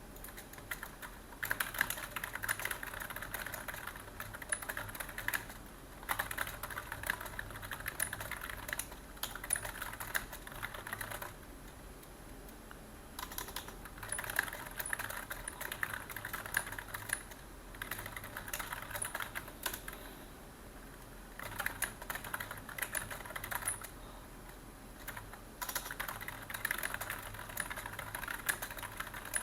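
Computer keyboard being typed on in quick runs of keystrokes lasting several seconds, with short pauses between them.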